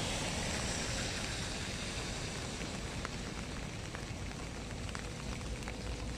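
Steady rain falling on the water and bankside vegetation, an even hiss with a few light drop ticks.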